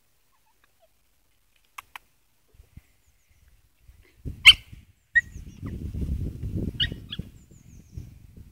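Poodle and Maltese puppies playing rough: after a quiet start, one sharp yip about four and a half seconds in, then low growling with a couple more short yips.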